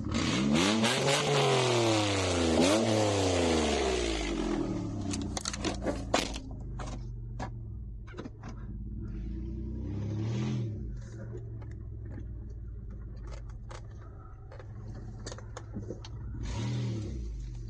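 Mitsubishi Endeavor's 3.8-litre V6 heard from inside the cabin, revving up and down twice under a loud hiss of tyre and brush noise over the first few seconds as it drives the dirt trail. Then a scatter of sharp knocks and clicks, and the engine running at low revs with two smaller revs, about ten seconds in and near the end.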